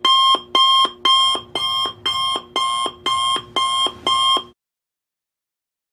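Electronic alarm beeping: nine quick pitched beeps, about two a second, each with a small two-tone warble, stopping suddenly about four and a half seconds in.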